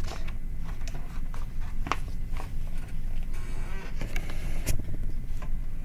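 Scattered scrapes, rustles and clicks of a picture book being handled and opened, over a steady low hum.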